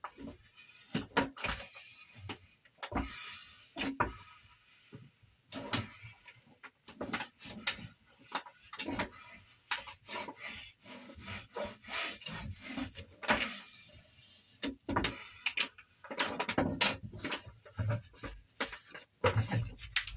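A silicone heater pad being rubbed and pressed down by hand onto an aluminum bed plate to work out air pockets: irregular rubbing and scraping strokes with scattered knocks.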